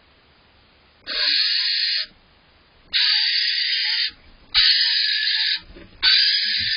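Barn owl giving four harsh, hissing screech calls, each about a second long, with short pauses between them.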